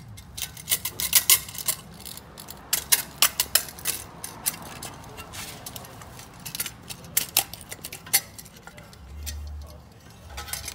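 Irregular metallic clicks and taps of a metal brake caliper cover and its mounting clip being handled and lined up on the brake caliper, in quick clusters with pauses between. A short low rumble comes near the end.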